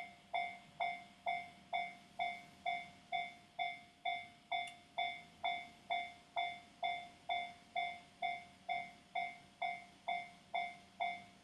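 Japanese railway level-crossing alarm ringing steadily, an evenly repeated bell-like ding a little over twice a second, each strike dying away quickly: the warning that a train is approaching the crossing.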